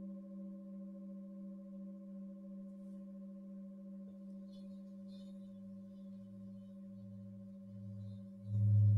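Tibetan singing bowls ringing: a steady hum of several held tones carries on, while a deeper pulsing tone grows in from about halfway. Near the end, a large bowl comes in much louder.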